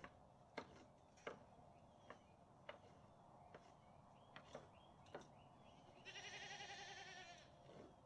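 A goat bleats once, about six seconds in, a long wavering call lasting over a second. Before it, scattered faint clicks and taps of a wooden stick being pushed across wooden deck boards to clear goat droppings.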